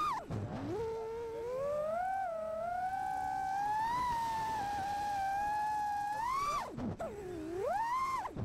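FPV freestyle quadcopter's MEPS 2207 1750KV brushless motors and Gemfan props whining. The pitch rises and falls smoothly with the throttle. Just after the start and again about seven seconds in, the throttle is chopped: the whine drops away for a moment and then spools back up.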